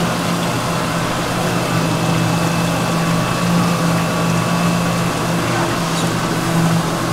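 Steady low machine hum over a constant background hiss, even throughout.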